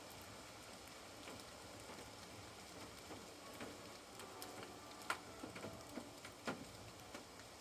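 Raindrops falling, scattered single drops ticking and tapping at irregular intervals over a faint steady hiss of rain.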